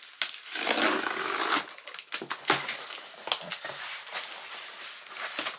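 A parts package being opened and handled by hand: a long rustling scrape for the first second and a half, then a run of short crinkles and taps.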